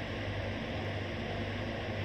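A ferry's machinery running: a steady low hum under an even hiss.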